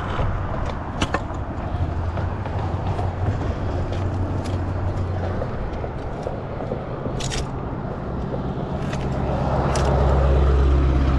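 A motor vehicle's engine hum, steady and then swelling louder near the end as it passes, with a few sharp clicks along the way.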